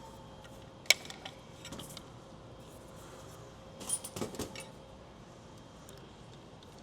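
Small metal parts of a vacuum generator being handled during disassembly, clinking and clicking: one sharp click about a second in, a few lighter clicks, then a short cluster of clinks just past halfway.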